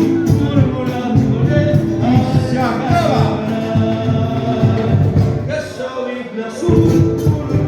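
Folk song with singing over a steady beat, played loud through a sound system.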